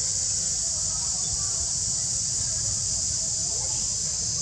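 Steady high-pitched chorus of forest insects, with a low rumble underneath.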